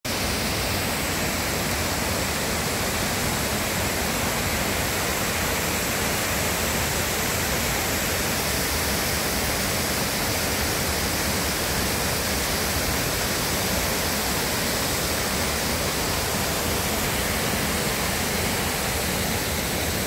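Wide curtain waterfall pouring over a rock ledge into a pool: a steady, even rush of falling water.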